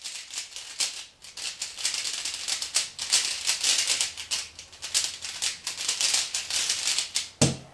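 Plastic 3x3 speedcube (a lubricated ZhanChi) being turned rapidly with one hand: a fast, irregular clatter of clicks and rattling layer turns, with one heavier thump near the end.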